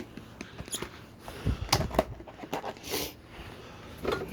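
Food containers being handled and set down on fridge shelves: scattered light clicks, rustles and knocks, with a few louder thumps about halfway through.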